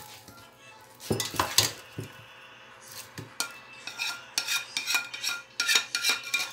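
A metal spoon scraping and clinking against a metal pan and an enamel pot while stirring popcorn coated in caramelized sugar. Irregular scrapes at first, then from about three and a half seconds in a quick run of clinks with a ringing metal tone.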